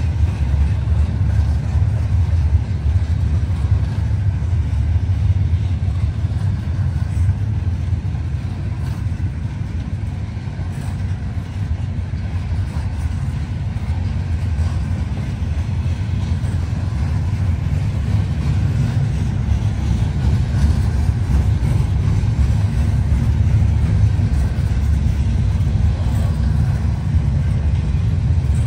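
Freight train cars rolling past on the rails: a steady, loud, low rumble with a faint tick here and there.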